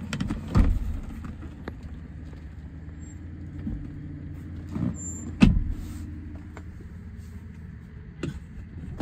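Toyota iQ's small engine idling steadily. Two sharp knocks sound over it, about half a second in and again about five and a half seconds in.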